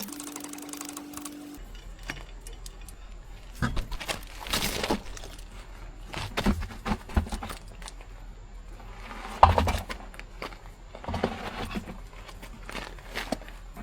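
Hand tools and metal brake parts clinking and knocking as a car's wheel brake is taken apart, in irregular bursts with the loudest knock a little past halfway, after a brief steady hum at the start.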